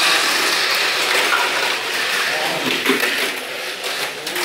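A Mini 4WD Avante car running on its track: a steady, hissing whir.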